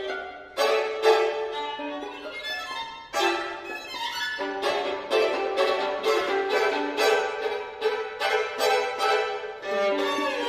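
Two violins playing a duo, with many sharply accented bowed strokes and chords.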